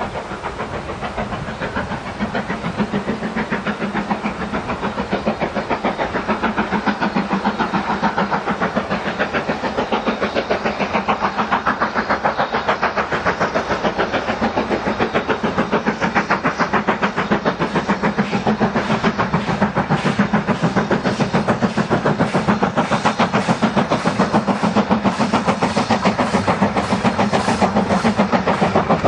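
Steam tank locomotive working a passenger train, its exhaust beats in a rapid, even rhythm growing steadily louder as it approaches.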